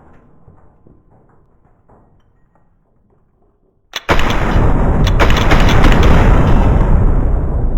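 A fading low rumble, then a sharp crack about four seconds in and a sudden, very loud boom with a heavy bass rumble that slowly dies away.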